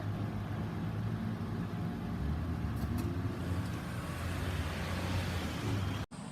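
Road traffic passing, a low steady rumble of engines and tyres, which cuts off abruptly near the end.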